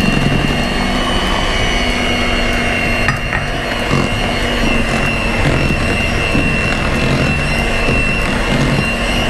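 Electric hand mixer running at a steady speed, its motor giving a constant whine as its beaters churn sponge cake batter, folding in the melted butter added last.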